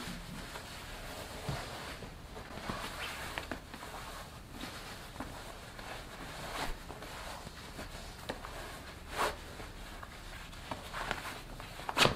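Heavy cotton judogi and black belt rustling and scraping as the belt is wrapped around the waist and knotted, with a few short snaps of cloth. The loudest is a sharp snap near the end as the belt ends are pulled tight.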